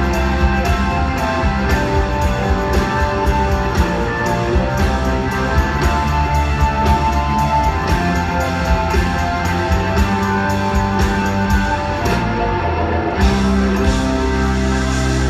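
Live rock band playing a slow blues song, led by electric guitar over drums and keyboards, heard from the audience. About twelve seconds in the cymbals drop out briefly, then the band comes back in with long held notes.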